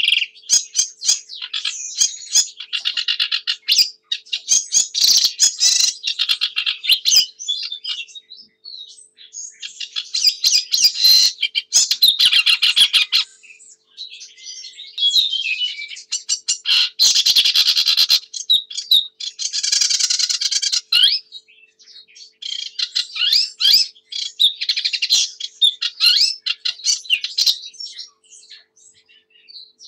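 Sedge warbler singing: fast, high phrases of rapidly repeated notes and trills, each a few seconds long, about six of them with short pauses between.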